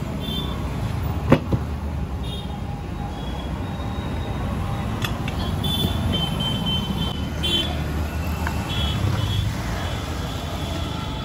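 Road vehicle noise: a steady low rumble, with a sharp click a little over a second in.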